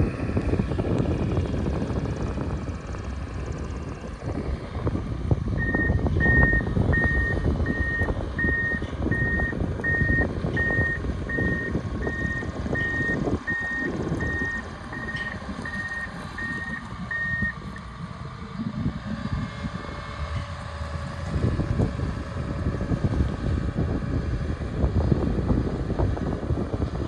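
Wheel loader's diesel engine running as it maneuvers. Its backup alarm beeps steadily, about seventeen beeps at roughly one and a half a second, starting about six seconds in and stopping about twelve seconds later.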